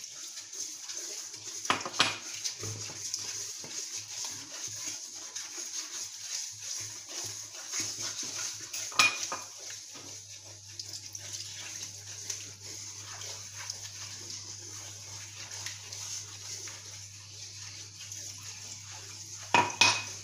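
Wooden spoon stirring and scraping a roux-based sauce in a metal frying pan, with a steady sizzling hiss from the hot pan as cod cooking water is worked into the butter and flour. Sharp knocks of the spoon against the pan come about two seconds in, around nine seconds and near the end, and a low steady hum joins about halfway.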